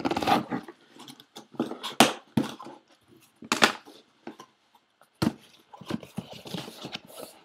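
Cardboard shipping box being opened and handled by hand: irregular knocks, scrapes and rustles as the flaps are pulled open and the box is moved about, with sharp knocks about 2, 3.5 and 5 seconds in.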